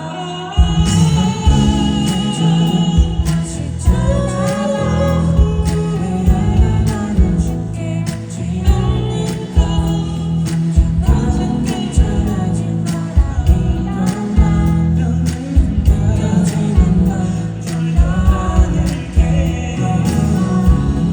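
A pop song performed live, with singing over a band mix. About half a second in, the full beat with heavy bass and drums kicks in and runs on loud.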